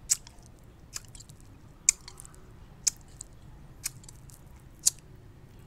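Wet mouth clicks and smacks from licking a brittle dalgona sugar candy to dissolve it around the stamped shape: about six sharp clicks, roughly one a second.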